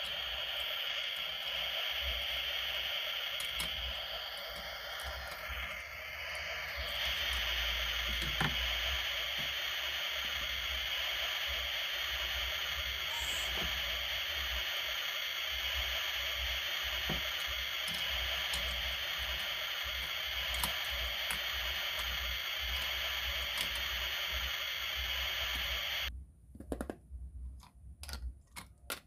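Toy barbecue grill's electronic sizzling sound effect, a steady hiss that cuts off suddenly near the end. After it stops come a few light clicks of plastic toy food being handled.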